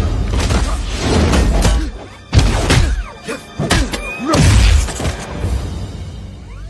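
Action-film fight soundtrack: score music under a rapid run of hard body blows, crashes and blasts. The loudest hits land about two and a half seconds in and again just after four seconds.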